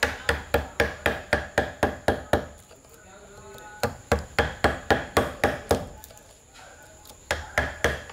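Quick, evenly spaced hammer blows, about four to five a second, in bursts of roughly two seconds with short pauses between.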